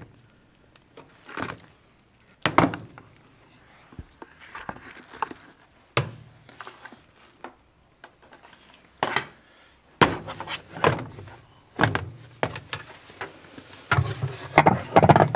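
Irregular hollow knocks and clunks of a plastic replacement agitator for a Sharp ES-BG551 washing machine, handled and lowered onto the spindle in the tub. There are a dozen or so separate knocks, with a busier clatter near the end.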